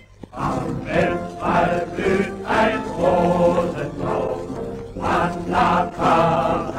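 Background music: a choir singing a German song, starting a moment in.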